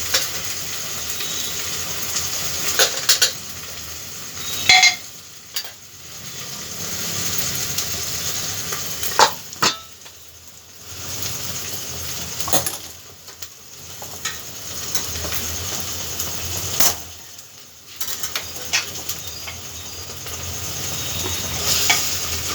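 Onion and spice masala sizzling in hot oil in a pressure-cooker pot while a spoon stirs it. The spoon clinks sharply against the metal pot now and then, and the sizzle dips briefly several times.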